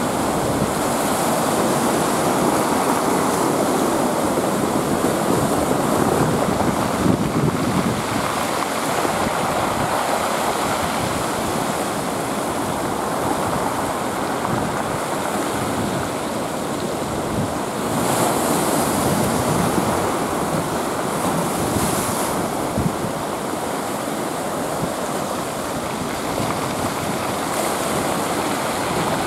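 Rough sea after a typhoon: surf breaking and washing without pause, with a few louder breakers, and wind rushing over the microphone.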